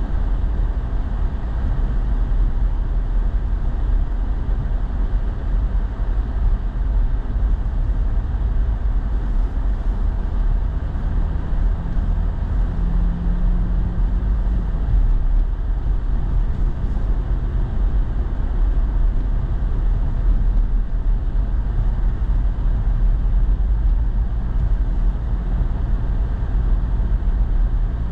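Steady low rumble of a pickup truck driving, with engine and road noise heard from inside the cab. A faint hum rises briefly about twelve seconds in.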